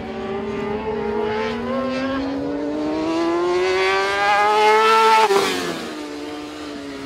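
Racing sport-bike engine accelerating hard, its pitch rising steadily for a few seconds, then dropping sharply as it passes close by about five seconds in. A steadier engine tone from other bikes runs underneath.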